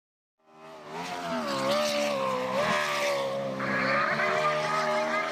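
Speedboat engine running at speed, a steady drone with a whine, fading in about half a second in; a hiss joins about three and a half seconds in.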